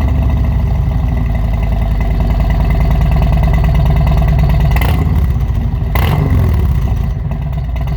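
Harley-Davidson Sport Glide's Milwaukee-Eight V-twin engine running steadily, with a brief change in its note about five and six seconds in.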